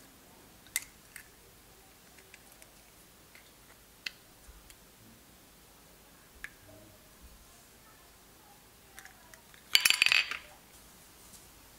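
Eggshells tapping and clinking against ceramic bowls as eggs are cracked and separated, in a few sharp single clicks. About ten seconds in comes a louder rattle of clinks as a hand takes eggs from the ceramic dish.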